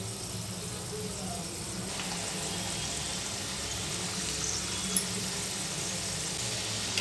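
Shankarpoli dough pieces deep-frying in hot oil: a steady sizzle and bubbling that grows a little about two seconds in. A faint click near the end.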